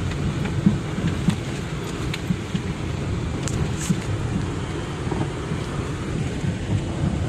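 Car driving slowly over a potholed dirt road: a steady low rumble with scattered knocks and rattles as it jolts over the holes.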